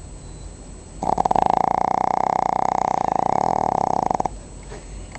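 Pug snoring: one long, loud snore with a fast flutter, lasting about three seconds, starting about a second in and cutting off sharply.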